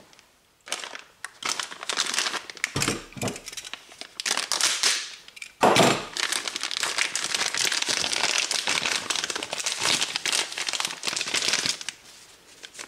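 Clear plastic parts bag crinkling as a new starter brush assembly is unwrapped, with one sharper bump about six seconds in.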